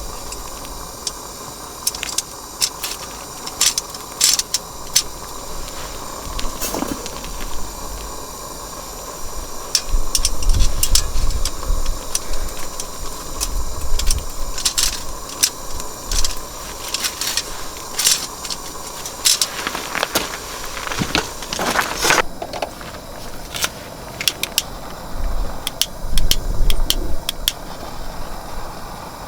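Small hard objects clicking and clinking again and again, with wind gusting on the microphone in low rumbles and a steady hiss underneath.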